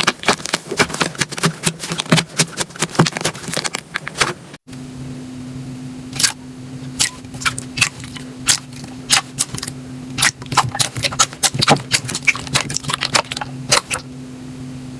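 Slime being squished and worked, making rapid crackling clicks. About four and a half seconds in, it cuts to sparser, separate pops over a low steady hum.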